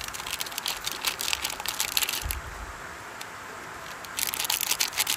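Crinkling and rustling handling noise in two bouts: one over the first two and a half seconds, another near the end. Under it runs the steady rush of a flowing stream.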